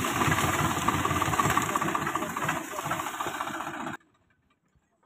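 Farm tractor's diesel engine running steadily as the tractor drives through standing maize. It cuts off abruptly about four seconds in, leaving near silence.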